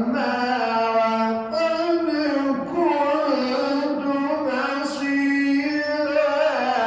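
Male Quran reciter chanting in melodic tajweed style: one continuous sung line of held, drawn-out notes with gliding pitch ornaments.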